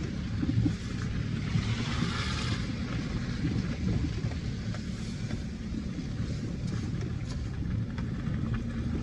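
Citroën Berlingo van driving out of a muddy field, its engine running with a steady low rumble. There is a brief hiss about two seconds in.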